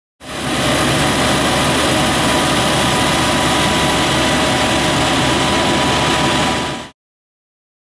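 Fire truck engine running steadily, with a constant whine and a full, even hiss over it. It starts a moment in and fades out near the end.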